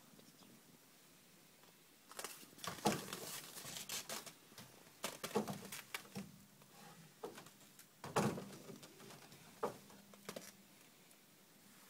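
A bull moving about in hay and frozen snow, with its head down at the wooden wall: irregular rustling, crunching and knocking, in clusters from about two seconds in until near the end.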